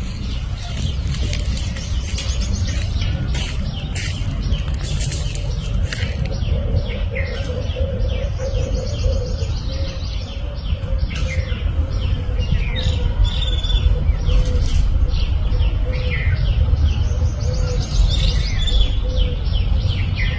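Birds chirping in quick, dense runs of short notes over a steady low rumble.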